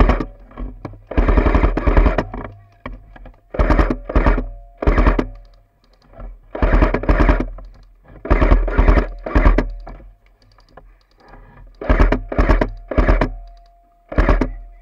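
Airsoft electric gun firing on full-auto in short bursts of rapid clicks, about ten bursts, each half a second to a second long, with short pauses between.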